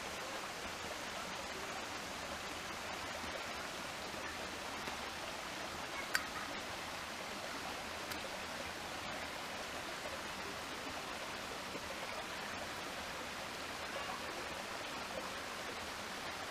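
Steady rush of a small rocky creek flowing. A single sharp click about six seconds in.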